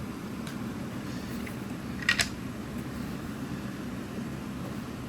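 Two quick sharp clicks close together about two seconds in, from the speaker being handled while it is taken apart, over a steady low hum.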